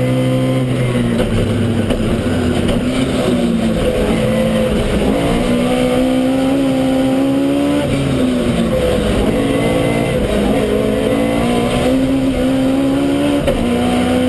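Toyota Starlet KP61 rally car's engine heard from inside the car under hard driving, its pitch climbing and dropping several times as the driver accelerates, shifts and lifts.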